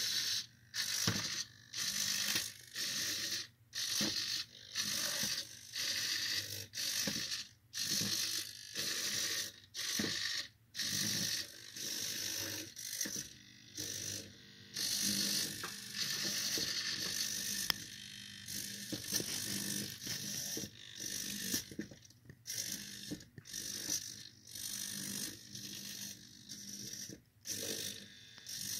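Gear train of a small battery-driven walking toy robot, a ratcheting mechanical whir that pulses about once a second in time with its stepping, dropping out briefly between strides.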